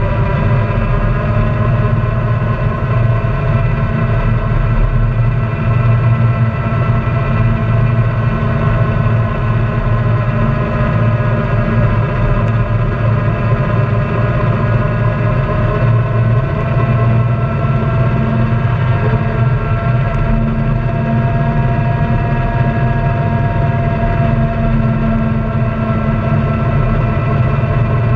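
Honda Pioneer 700-4 side-by-side's single-cylinder engine running steadily as it cruises along a gravel trail, heard from on board, its pitch drifting gently up and down with the throttle.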